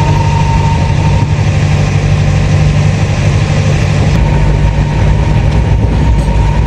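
Fairy Queen steam train running along the line: a steady, loud rumble of the train on the track, with a faint steady tone above it.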